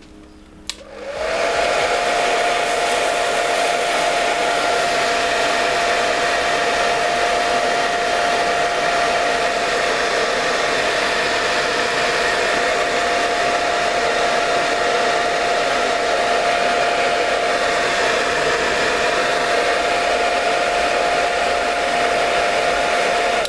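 Handheld hair dryer switched on with a click, spinning up within about a second and then running steadily on its lowest setting with a steady whine over the rush of air, blown into a perforated plastic bag over the hair. It is switched off near the end.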